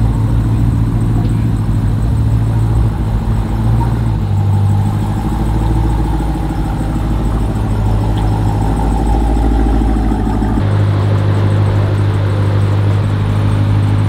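A car engine running steadily with a deep, loud hum. The low note changes abruptly twice, about four seconds in and again near the ten-second mark.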